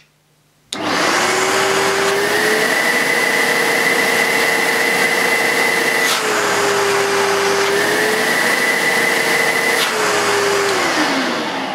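Sebo Automatic X1 upright vacuum cleaner's motor running with the hose end blocked to simulate a full bag, which sets off the red bag-full light. Its whine steps up to a higher steady pitch twice and drops back each time, with a light click at each drop. The motor sounds absolutely fantastic.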